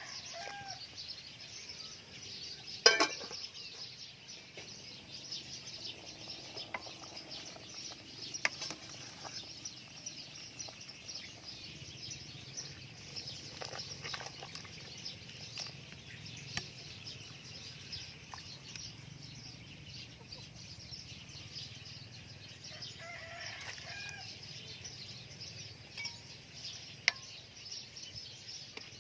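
Chickens clucking now and then over a steady high-pitched hiss, with one sharp clink about three seconds in and a few fainter clicks.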